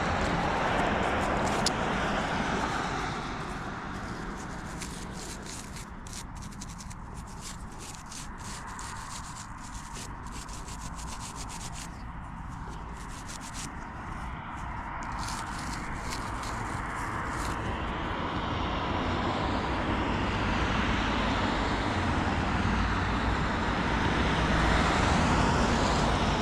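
Steady road-traffic noise that fades in the middle and swells again toward the end. Through the middle stretch come fine, crackly scratching and rubbing sounds close to the microphone.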